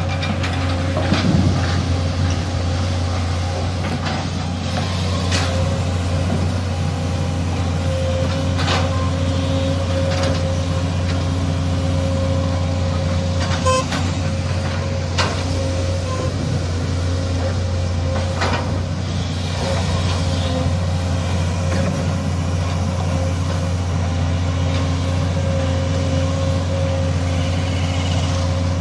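Case CX220C excavator's diesel engine running steadily under working load as the machine digs and swings, a continuous low drone with a steady higher whine over it. A few sharp knocks come through at scattered moments.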